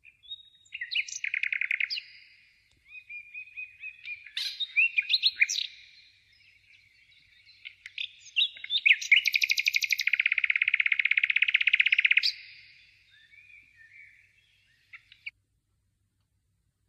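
A songbird singing a varied song of chirps, short whistled slides and fast, even trills, the longest trill lasting about three seconds in the middle. The song cuts off suddenly near the end.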